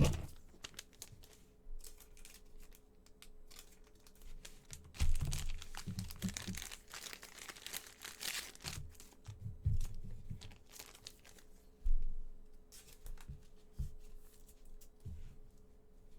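Wrapper of a football trading card pack being torn and crinkled, with cards handled in between. The tearing and crinkling is densest for a few seconds in the middle.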